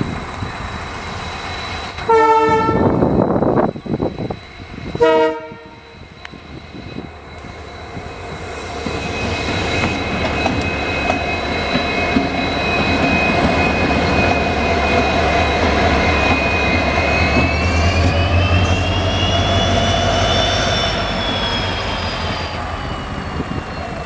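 EMD WDP4D diesel locomotive sounding its horn, one long blast then a short one, then its 16-cylinder two-stroke engine running loud as it passes close by, with a deep rumble and a whine that rises and falls near the end.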